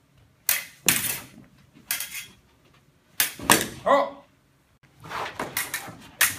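Fencing foil blades clashing and scraping together during a bout: irregular sharp metallic clicks and scrapes in quick clusters, with a busy exchange near the end.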